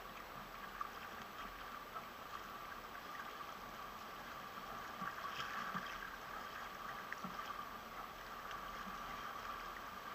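Steady wash of water rushing along a sailing catamaran's hull as it sails, with small splashes scattered through it.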